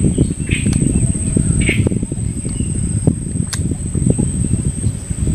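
Low rumbling, crackling noise on the microphone under a steady high-pitched insect drone, with a couple of short chirps in the first two seconds and a sharp click about three and a half seconds in.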